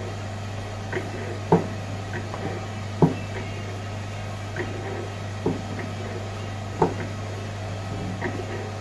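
Electric dough-sheeting roller machine humming steadily as dough pieces are fed through it, with irregular soft knocks of dough being dropped and slapped down on the machine and floured table about every second, the two loudest about a second and a half and three seconds in.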